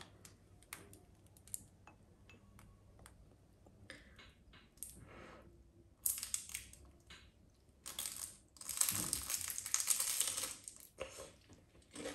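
Faint clicks and taps, then crunching as crispy air-fried rice-paper spring rolls are bitten and chewed, loudest in the second half.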